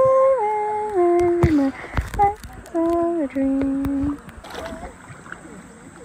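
A person humming a slow tune in long held notes that step downward in pitch, stopping about four seconds in.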